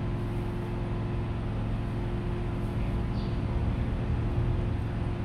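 Steady low mechanical hum with a constant tone running through it, unchanging throughout.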